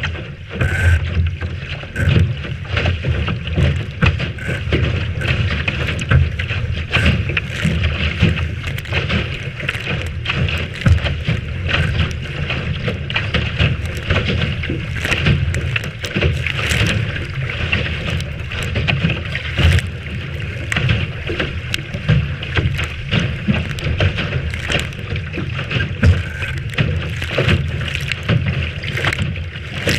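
Water rushing and splashing against the hull of a Lightning sailing dinghy under way in a strong breeze, with frequent sharp splashes and a constant low rumble of wind buffeting the microphone.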